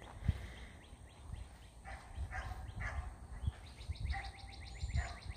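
Birds calling, with a fast trill of evenly repeated chirps, about ten a second, starting about two thirds of the way in. A few low thuds and rumbles sit underneath.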